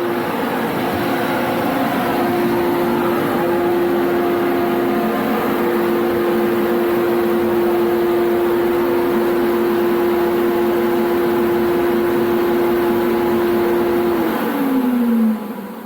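Kawasaki ZX-14R with an aftermarket exhaust running on a chassis dyno, held at a steady engine speed, then the throttle is closed and the pitch falls away near the end.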